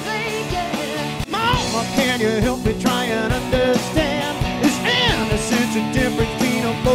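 Rock band playing a song with lead singing over electric guitar, bass and a steady drum beat.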